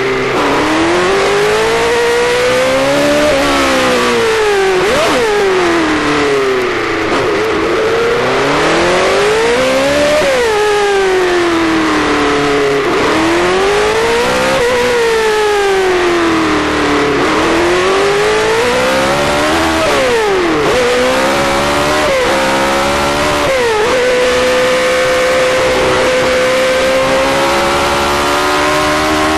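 BRM V8 Formula One engine heard from the cockpit on a lap of Monte Carlo, the revs climbing and falling every few seconds as the driver changes up and down through the gears, with sudden drops in pitch at the upshifts. Near the end it holds one long, slowly rising note.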